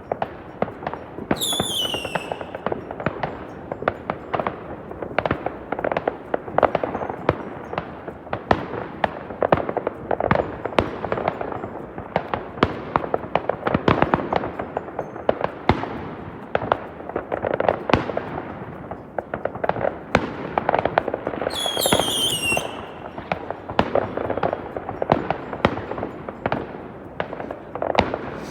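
Many fireworks and firecrackers going off at once, a dense, unbroken crackle of sharp bangs. Two falling whistles from whistling fireworks cut through, about two seconds in and again about 22 seconds in.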